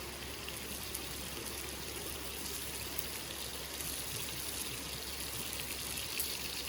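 Steady rush of flowing water, an even hiss with a few faint ticks.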